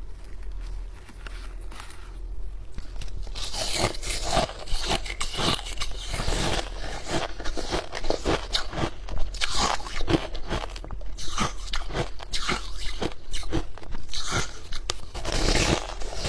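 Hard ice being bitten and chewed close to the microphone, a run of irregular sharp crunches a few each second, thinner for the first few seconds and then steady.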